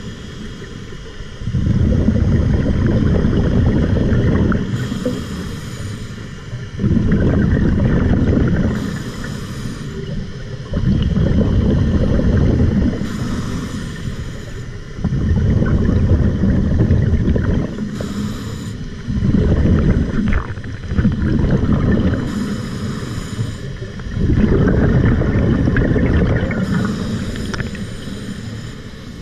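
Scuba diver breathing through a regulator in a steady rhythm of about six breaths: a short, thin hiss on each inhale, then a longer, louder rumble of exhaled bubbles.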